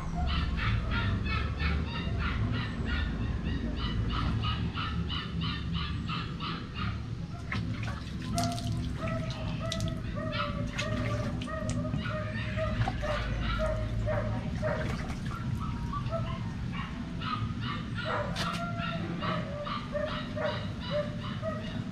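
Small puppy whimpering and yipping while being bathed in a bucket of water: quick repeated cries at first and near the end, and a long, broken whine in between. A few splashes of water come through now and then.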